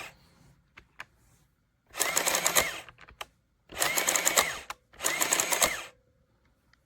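The built-in thermal printer of a desktop printing calculator feeding and printing the paper tape in three short mechanical runs, each about a second long. A few faint key clicks fall between the runs.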